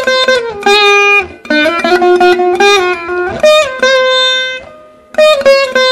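Veena played solo: a run of plucked notes in Shankarabharanam raga, bending and sliding between pitches along the frets. The notes fade out about four seconds in, and the plucking starts again about a second later.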